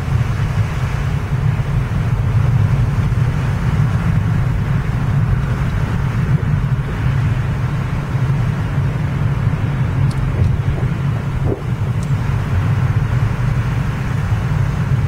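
Steady low rumble of a car's engine and tyres heard from inside the cabin while driving along a winding road.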